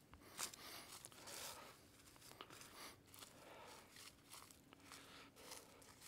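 Faint footsteps crunching and rustling through dry leaf litter, irregular steps about every half second to a second.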